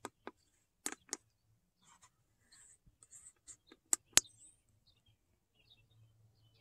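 Keypad buttons on a handheld automotive scan tool clicking as they are pressed to select and confirm clearing the stored trouble codes: a few scattered single clicks, the two loudest about four seconds in.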